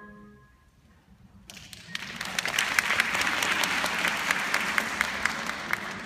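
The last tone-chime notes die away, then an audience breaks into applause about a second and a half in, building to steady dense clapping.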